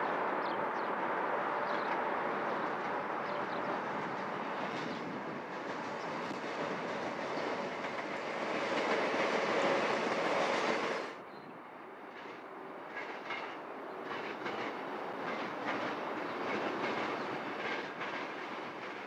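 Suburban electric passenger train passing at speed: a steady rushing rumble of wheels on rail that swells to its loudest near the middle, then drops suddenly to a quieter pass with a run of clicks from the wheels over the rail.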